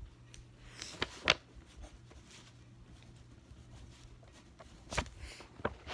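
Quiet room with a steady low hum, broken by a few short knocks and rustles of handling close to the microphone: two about a second in, two more near the end.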